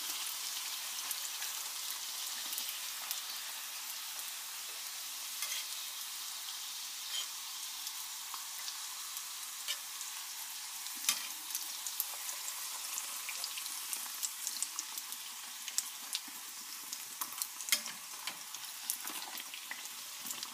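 Semolina puris deep-frying in hot oil in a small kadai: a steady sizzle with scattered sharp pops and clicks as a perforated metal skimmer turns them.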